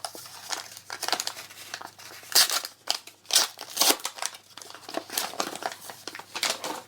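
Plastic foil wrapper of a trading card booster pack crinkling as it is torn open and handled, in a run of irregular crackles.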